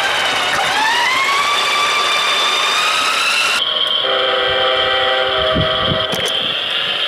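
Playmobil 5258 RC freight train's battery-powered locomotive running on its plastic track, its electric motor and gears whining steadily. The whine dips in pitch and climbs back about half a second in, then changes abruptly a few seconds in to a steadier, higher whine, with a few low knocks near the end.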